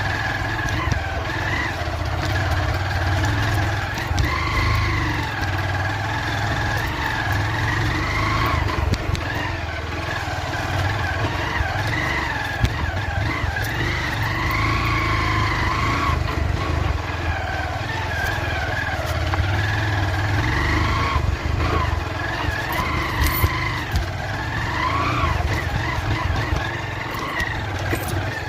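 Motorcycle engine running as it is ridden on a dirt trail, its pitch rising and falling with the throttle, over a steady low rumble of wind and rough ground, with short knocks here and there.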